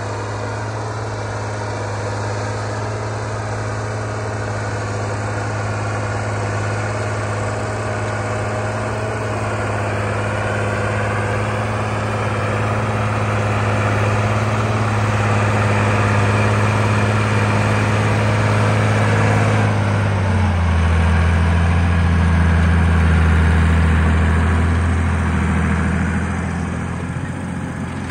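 Landini Legend 115 tractor's diesel engine working steadily under load as it pulls a tine cultivator through ploughed soil. Its note drops a little about two thirds of the way in, and it grows louder as the tractor comes close, easing off slightly near the end.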